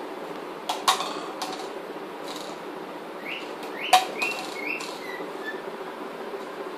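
Rainbow lorikeet giving a few short chirps, with two sharp taps on the tiled floor, one about a second in and one just before the chirps peak, over a steady low background hum.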